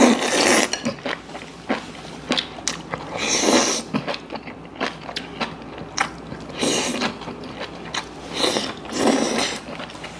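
A person eating close to the microphone: four long slurps of food strands off chopsticks, a few seconds apart, with chewing and small wet clicks between them.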